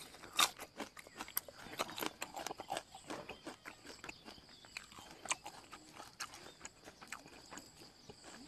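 A person chewing a mouthful of fish larb and fresh green onion close to the microphone: a run of soft, irregular mouth clicks.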